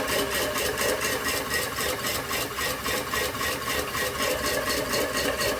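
Washing machine motor running steadily, driving a homemade potter's wheel through rubber-band belts over a wooden pulley and a pickle-tin wheel, with a hum and a fast, even rattle.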